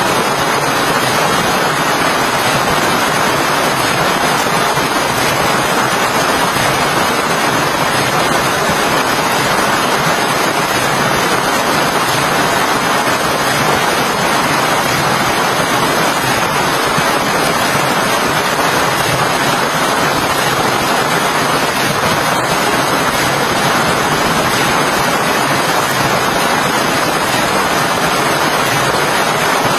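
Steady heavy rain, an even hiss that holds unchanged throughout.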